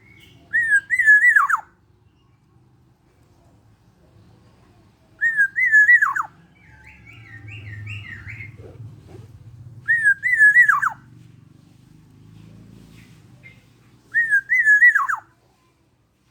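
Black-naped oriole singing: four identical fluty whistled phrases about four and a half seconds apart, each a wavering note that ends in a quick downward slur. A fainter, scratchier run of notes comes between the second and third phrases.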